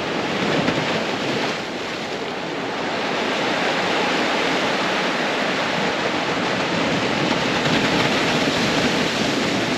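Ocean waves washing onto the shore: a steady rush that eases off briefly about a second and a half in, then swells again.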